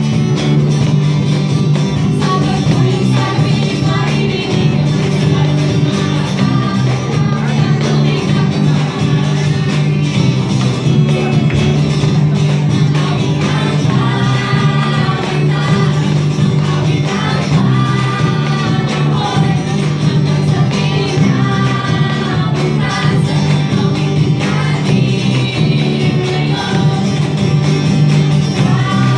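Music: a song with several voices singing over a steady instrumental accompaniment.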